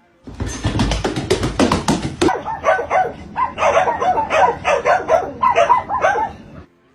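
A dog barking and yipping in a quick series of short calls, about two or three a second, after a noisy stretch of about two seconds at the start.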